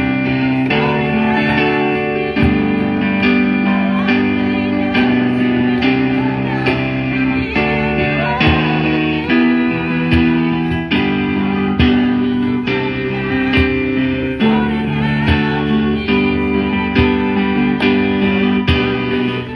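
Guitar music with strummed chords changing every second or so.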